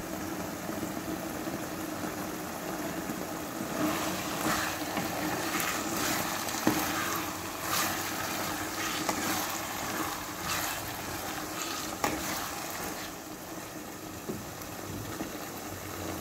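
Minced beef keema sizzling in oil in a non-stick wok. From about four seconds in until near the end, a spoon scrapes and stirs through the mince, with a couple of sharp knocks against the pan.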